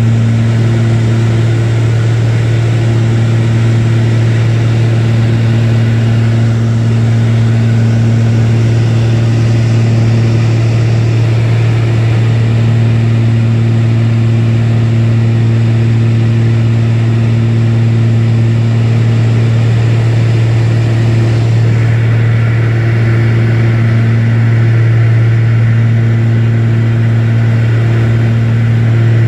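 Aircraft engine running steadily, heard inside the cabin as a loud, even low hum with a rushing hiss of airflow over it.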